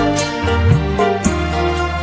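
Music with deep held bass notes and short sliding bass glides, over sustained higher tones and light regular cymbal strokes.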